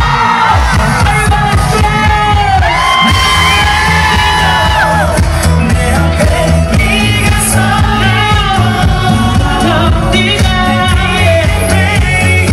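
A man singing a Korean pop song live through a microphone over loud amplified accompaniment, holding long notes over a steady bass line, with the crowd yelling and whooping.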